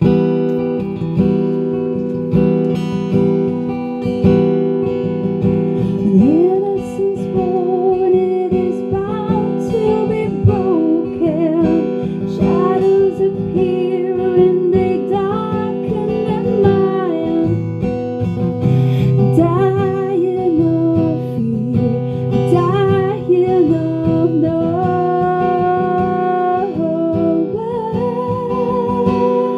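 Acoustic guitar strummed live, joined about six seconds in by a woman singing the melody over it: a stripped-down guitar-and-voice rock ballad.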